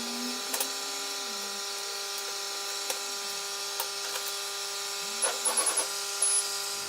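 80W CO2 laser cutter running a cut: a steady machine hum, with the gantry motors' tone gliding up and down as the laser head moves. There are a few clicks, and a run of short high beeps comes near the end.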